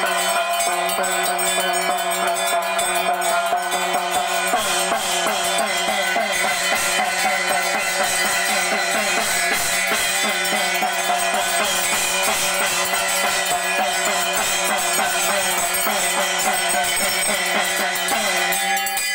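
Temple bells ringing without a break over rapid drum and cymbal percussion: the steady din of ritual music played during a puja. The drumming gets denser about four seconds in.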